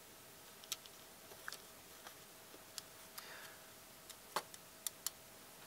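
Light, irregular clicks and taps as an IC chip and printed circuit board are handled, the chip's pins being bent and pressed into the board; the sharpest click comes a little past the middle.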